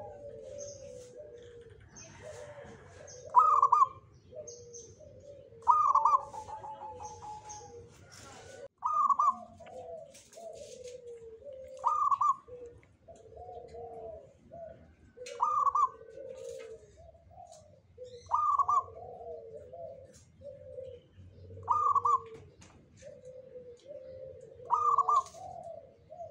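Zebra dove (perkutut) cooing: a nearly continuous run of low, rolling coos, broken about every three seconds by a loud, higher coo. Faint, very high chirps sound over the top.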